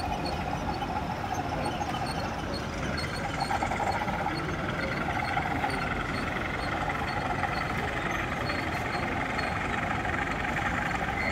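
OO gauge model diesel locomotive running with its engine sound playing steadily, and light, irregular ticking over it.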